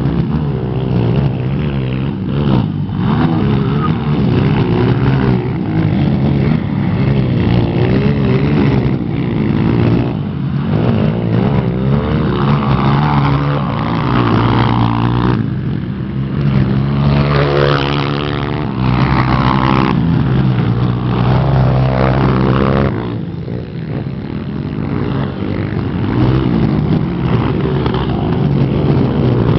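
Motocross motorcycle engines racing, several at once, their pitch rising and falling as the riders rev and shift and the bikes pass, with a dip in level about two thirds of the way through.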